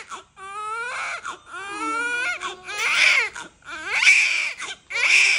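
Newborn baby crying hard: a string of about five high-pitched wails, each about a second long, broken by short gasps for breath.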